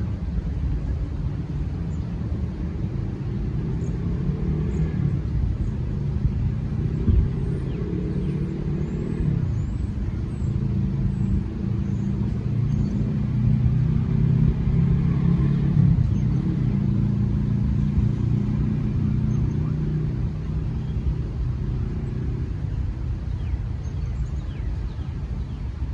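Low, continuous rumble of nearby motor traffic, its engine hum shifting in pitch as vehicles pass, with faint, short, high bird chirps above it.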